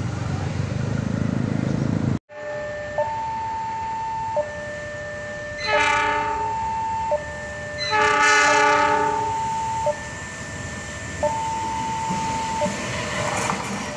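Railway level-crossing warning alarm sounding a steady two-tone signal that switches back and forth between a lower and a higher pitch, while an approaching KAI diesel locomotive sounds its horn twice, each blast about a second and a half long, near the middle. A low rumble fills the first two seconds, and the noise of the arriving train starts to rise near the end.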